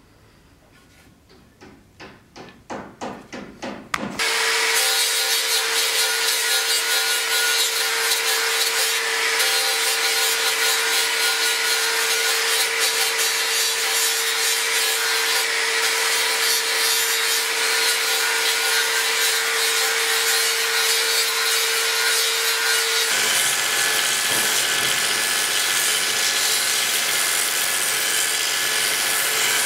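A run of quick strokes getting louder, then an angle grinder with a sanding disc starts suddenly and runs steadily, grinding down a wooden axe handle. About 23 seconds in it gives way to a belt sander running with the wooden handle held against the belt.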